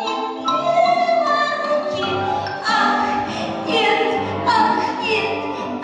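Music: a singer holding long notes over instrumental accompaniment, with a bass line coming in about two seconds in.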